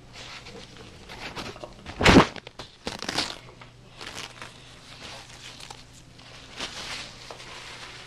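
Toilet paper being pulled off, torn and crumpled in the hand, with irregular rustling and a loud knock about two seconds in.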